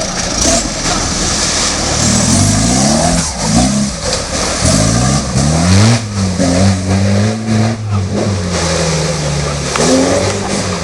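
Off-road 4x4's engine revving hard and unevenly, its pitch climbing and dropping several times, then holding at high revs for a couple of seconds before rising again near the end. Scattered knocks sound over it.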